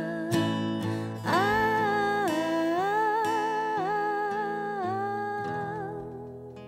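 Live acoustic guitar and a woman's voice ending a pop song: she holds one long sung note, wavering slightly, for about four seconds over ringing guitar chords, and the music fades out.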